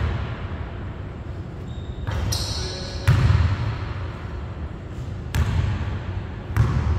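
A basketball thudding on a hardwood gym court and off the hoop, about four separate booming impacts at uneven intervals, each echoing around the large hall.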